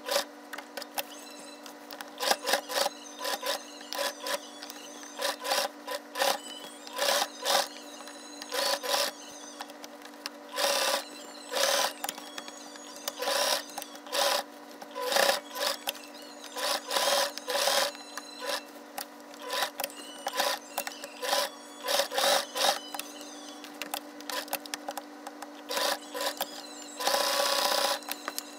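Domestic sewing machine zigzag-stitching an appliqué onto denim in many short stop-start runs as the fabric is turned around a curve, with a longer run near the end. A steady low hum lies underneath.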